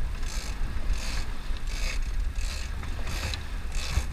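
Big-game fishing reel being cranked under heavy load while gaining line on a hooked giant bluefin tuna: a rasping whir with each turn of the handle, about one and a half turns a second, over a low rumble of boat and water.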